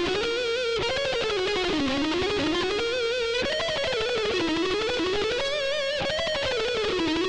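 Electric guitar playing fast picked runs at 185 BPM. The notes fall and climb again in a repeating pattern about every two and a half seconds.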